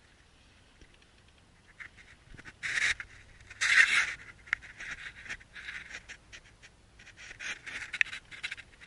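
Irregular scuffing and rustling with scattered clicks from someone crawling over the dirt floor of a crawl space, with two louder scrapes about three and four seconds in.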